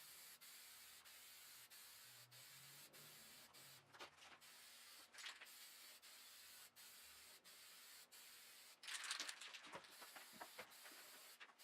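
Aerosol rattle can of primer spraying: a faint, steady hiss, broken by short gaps and louder for a moment about nine seconds in.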